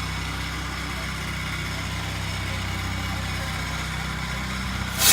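Pressure washer engine running steadily. Near the end a loud hiss of high-pressure water spray starts suddenly as the rinse begins.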